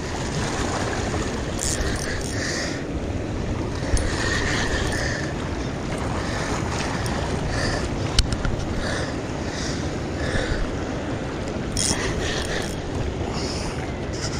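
Steady wind and water noise on the action-camera microphone at the water's edge, with a couple of brief clicks.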